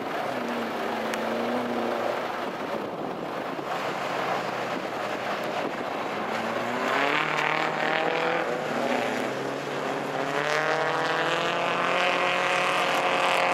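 Rear-wheel-drive folk-race cars racing on an ice track, their engines revving hard. The engine pitch climbs in repeated rising sweeps as they accelerate out of the corners.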